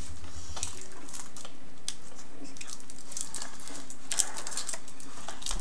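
Scattered light clicks and rustles of handling, with a sharper click about four seconds in.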